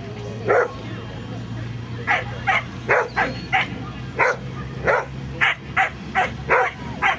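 Herding dog, a border collie type, barking repeatedly as it works goats: about a dozen short, sharp barks, mostly in quick bunches of two or three.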